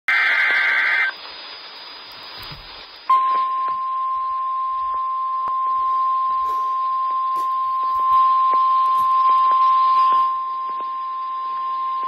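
The last burst of an Emergency Alert System SAME header's digital data tones, then about two seconds of faint radio hiss. Then the NOAA Weather Radio 1050 Hz warning alarm tone begins about three seconds in: a single steady beep held for about nine seconds, the signal that a warning broadcast follows.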